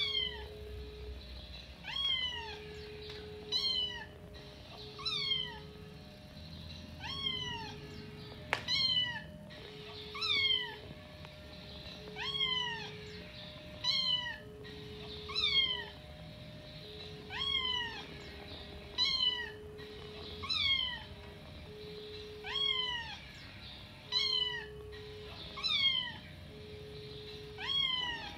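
Kitten meows repeating at a steady, machine-even pace, about one every second and a half to two seconds, each a short call falling in pitch, as from a looped recording. A short steady tone sounds between the calls.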